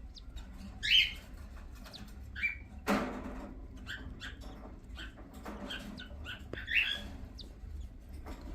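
Cockatiels giving short chirps, the loudest about a second in and again near the end, among soft rapid ticks of beaks pecking at food. A brief rustle about three seconds in.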